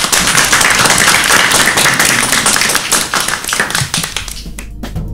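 Audience applauding, the clapping thinning out to a few last claps near the end. Background music, organ-like, fades in under the last claps.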